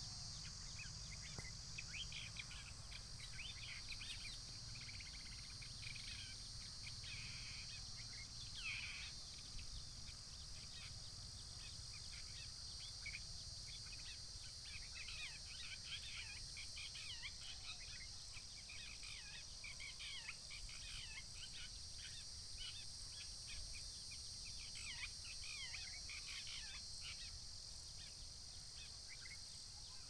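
Wild birds chirping and calling in many short, quick notes throughout, over a steady high-pitched insect drone.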